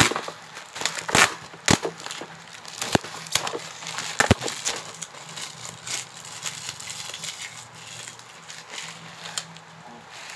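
Plastic bubble wrap crinkling and crackling as it is handled, with several sharp cracks in the first half, then softer rustling.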